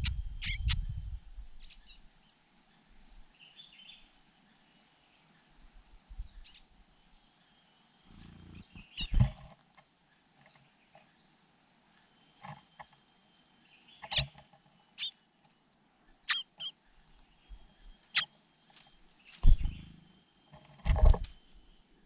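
Dry grass crackling and rustling in short bursts as a cuckoo shifts on a ground nest, loudest about nine seconds in and twice near the end, over faint distant birdsong.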